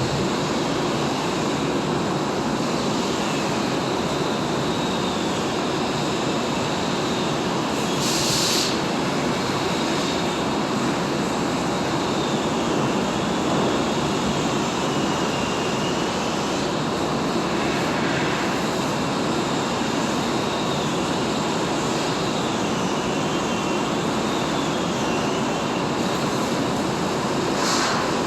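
TIG welding arc burning steadily as filler wire is laid into the joint: an even hiss with a faint wavering high whine, and two brief sharper crackles, one about a third of the way in and one near the end.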